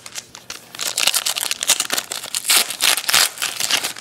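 Foil wrapper of a Prestige football card pack being torn open and crumpled, a dense run of crinkling crackles.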